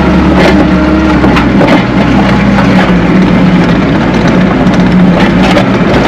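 Tracked skid steer's engine running loud and steady under load as the bucket digs in and pushes dirt, heard from inside the cab, with scattered sharp clicks and knocks.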